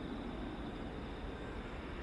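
Jet engines of a landing Boeing 737 on short final, heard as a steady, even rush.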